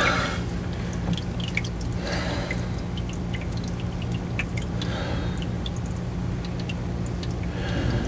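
Automatic transmission fluid dripping from the exposed filter and valve body of a Jeep 44RE transmission with the pan off: many small, irregular drips over a steady low hum.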